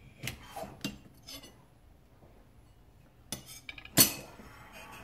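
Steel knife blade and height gauge clinking metal on metal as the blade's edge is scribed and the blade is turned over: a few light clicks in the first second and a half, a cluster of clinks about three seconds in, then a sharp, louder clink about four seconds in.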